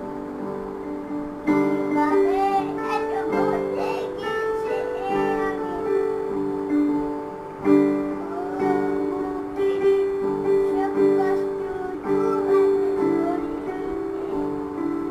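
A young child singing a song over held chords played on a digital piano, with the singing coming in about a second and a half in.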